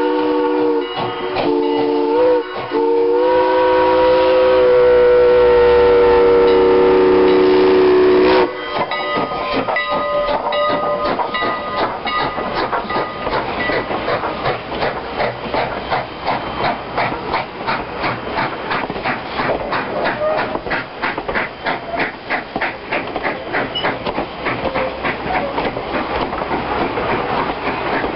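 Steam locomotive #89's chime whistle sounds several notes at once, in short blasts and then one long blast that cuts off about eight seconds in. The wooden passenger coaches then roll past with a steady rhythmic clickety-clack of wheels over the rail joints.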